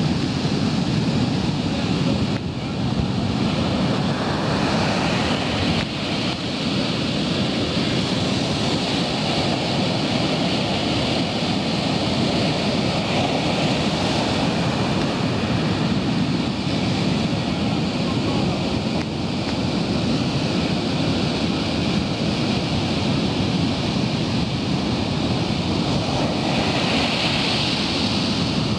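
Sea surf breaking and washing up a sandy beach in a steady rush of noise, with wind buffeting the microphone. A brighter hiss of wash swells up near the end.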